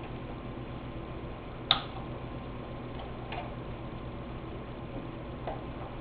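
Metal-on-metal clicks of an open-end wrench working the ignition coil's mounting bolts on a small engine as they are tightened: one sharp click a little under two seconds in, then a few fainter ticks, over a steady low hum.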